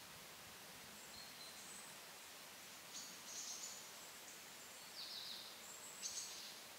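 Faint, high-pitched chirps of small birds: a few brief calls spread through, over a steady background hiss.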